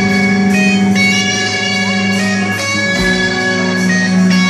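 Live rock band playing an instrumental passage with no vocals: an electric guitar holds sustained, ringing chords over drums, with deep drum hits at the start and about three seconds in.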